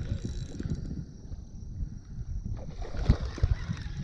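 Wind buffeting the microphone, an uneven low rumble, with a few soft knocks a little after halfway through.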